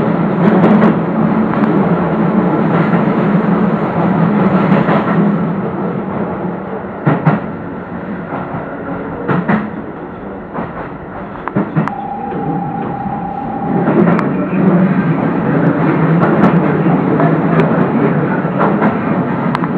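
Keio electric commuter train running at speed: wheels click over rail joints above a steady motor hum, which fades in the middle and comes back about fourteen seconds in. A steady single tone sounds for about two seconds around twelve seconds in.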